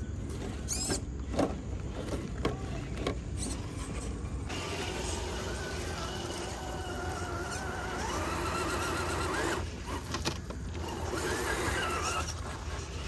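Electric drive motor and gears of an RC scale crawler whining as it crawls over logs, the pitch wavering with the throttle and climbing sharply about two-thirds of the way through before cutting off, then whining again near the end. Before that, scattered clicks and knocks of the crawler on wood.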